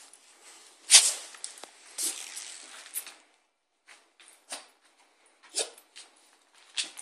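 Small long-haired dog scuffling and rustling as it squirms and rolls on its back on a woven rug, in short irregular noisy bursts, the loudest about a second in.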